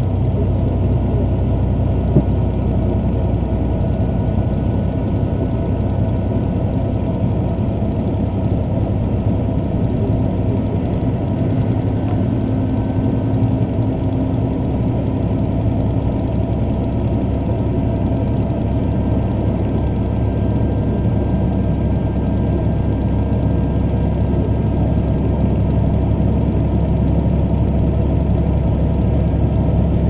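Diesel limited express train running at speed, heard from inside the passenger car: a steady low rumble of the underfloor diesel engine and the wheels on the rails. A single click comes about two seconds in.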